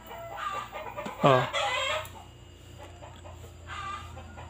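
Chickens calling: a loud rooster-like crow about a second in, with fainter clucking calls around it, over a low steady hum.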